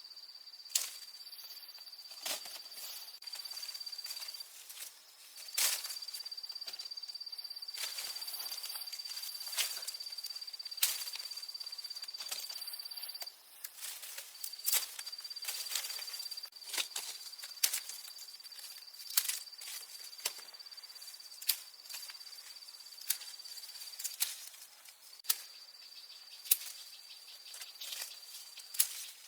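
A steady high-pitched insect trill that breaks off briefly a few times, with sharp clicks and snaps every second or two.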